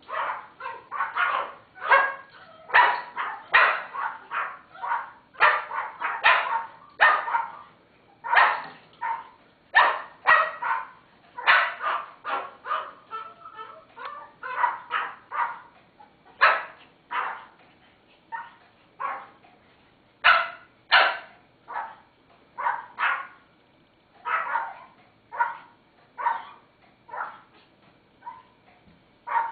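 Teacup Pomeranians barking, joined by a sulphur-crested-type pet cockatoo mimicking their barks: a long run of short, yappy barks, about two a second, with brief gaps.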